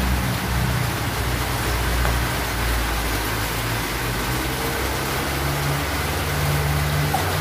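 Heavy tropical rain falling on garden foliage and the veranda roof, a steady dense hiss, with a low hum underneath.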